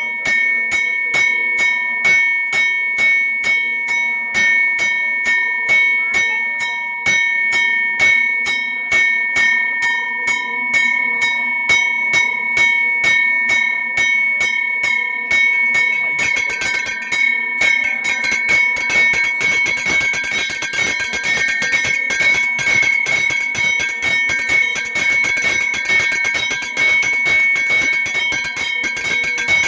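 A temple bell rung repeatedly, holding a steady ringing tone under even strokes about two or three a second. About halfway through, the strokes come faster and busier.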